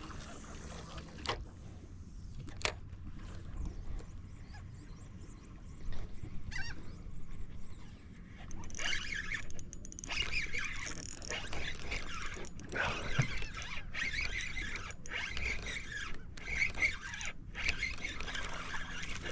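Gulls calling over the water: many squealing, wavering calls that start about eight seconds in and carry on, over a low rumble of wind and water, with a few sharp clicks earlier on.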